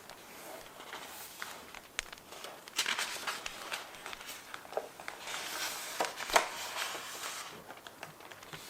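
Paper rustling and crinkling as journal paper is handled, with swells about three seconds in and again around six seconds. Small clicks, typical of bonfire crackle, run through it, and one sharp click is the loudest moment about six seconds in.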